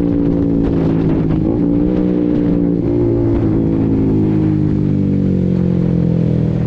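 Honda CBR150R's single-cylinder engine running loudly at steady, fairly high revs, the pitch dipping briefly a few times and easing down near the end.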